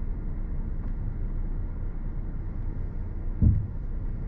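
Low, steady rumble of the family car's engine heard from inside the cabin as the car idles or creeps along, with one dull thump about three and a half seconds in.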